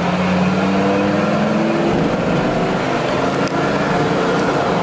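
Dodge Ram 2500's V10 gas engine heard from inside the cab, pulling away under acceleration. Its note rises over the first two seconds, then settles, over steady road and wind noise.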